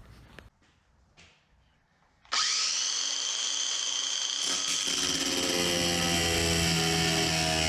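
Angle grinder switched on about two seconds in, spinning up to a steady high whine as it cuts a metal bar. Background music comes in about halfway.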